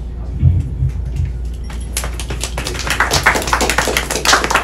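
Audience applauding, a dense patter of claps that swells about two seconds in.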